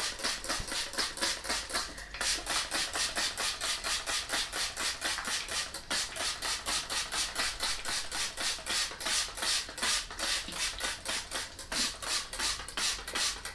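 Plastic trigger spray bottle pumped rapidly, giving a steady rhythm of short hissing squirts, about four a second, as it mists water onto potting soil.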